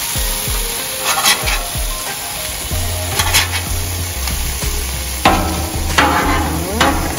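Frozen beef burger patties sizzling on the hot steel top of a Blackstone 28 griddle while they are flipped with a metal spatula. Several short scrapes of the spatula on the steel break into the steady sizzle, with louder flares of sizzle as turned patties land.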